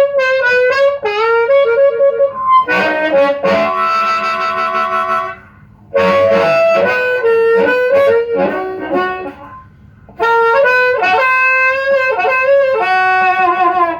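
Harmonica played through a vintage Astatic JT-30 microphone with its original MC127 ceramic element, plugged straight into an amplifier with no effects pedal. It plays three phrases of notes and chords, with short breaks between them.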